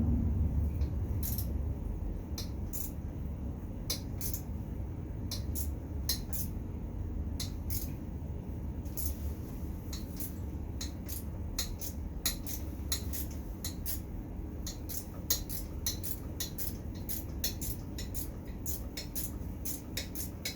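Hand tools working a bolt on an ATV engine: irregular sharp metallic clicks and clinks, coming in quick runs, over a steady low rumble.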